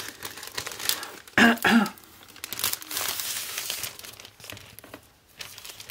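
Sheets of card stock and their plastic sleeve rustling and crinkling as they are handled, denser around the middle. A short voice sound, like a cough or murmur, comes about a second and a half in.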